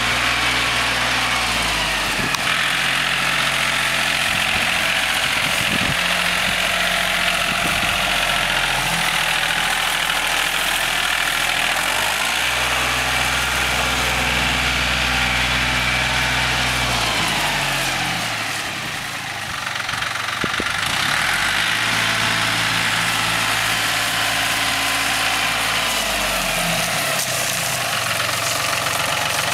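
Compact tractor's engine running as the tractor drives around, its engine speed stepping up and down several times.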